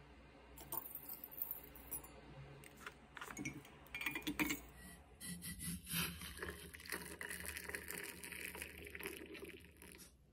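Light clinks of a metal mesh tea-infuser ball and measuring spoon as loose-leaf tea is spooned in, then hot water poured from a kettle into a ceramic mug, a steady pour from about halfway through that stops just before the end.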